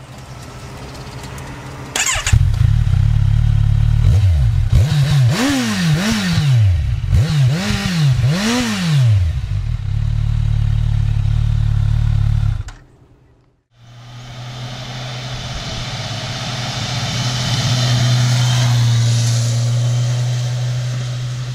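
Kawasaki Z1000SX inline-four with its stock silencer: it idles and is blipped up and back down four times in quick succession, then settles to idle. After a short break it runs at a steady speed on the road, getting louder and then fading.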